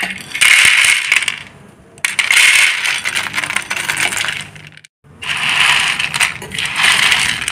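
Crisp fried macaroni pieces pouring and tumbling onto a plastic plate: a dense, dry clatter of many small hard pieces in three spells with short breaks between.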